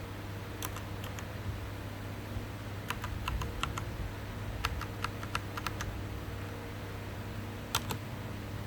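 Keys of an Azio MK-MAC mechanical keyboard with K-Switch switches being pressed: sharp clicks in short irregular clusters with pauses between, about a dozen strokes in all.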